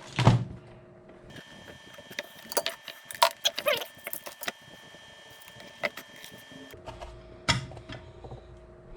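Scattered light clicks and small metallic rattles of wires and hand tools being handled while soldering, with a faint steady high whine behind them from about a second and a half in to about seven seconds.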